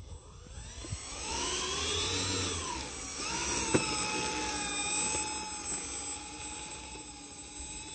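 The twin electric motors and propellers of an E-flite EC-1500 RC plane on snow skis whine as the throttle is raised, eased back, then raised again and held steady for taxiing. A constant high-pitched whine runs under it, and there is one sharp click about four seconds in.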